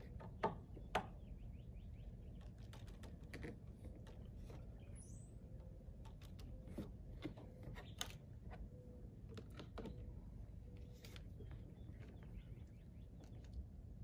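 Scattered light clicks and taps from a windshield wiper arm and its plastic washer-hose clips being handled and fitted, over a low steady background rumble.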